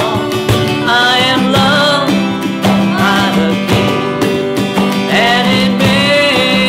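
A man singing a slow worship song while strumming an acoustic guitar, with a woman's voice singing along.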